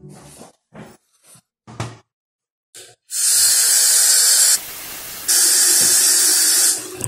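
Bathroom sink faucet running, water splashing into a small plastic tank held under it and into the basin, starting about three seconds in after a few light knocks. The splashing is briefly quieter in the middle and stops just before the end.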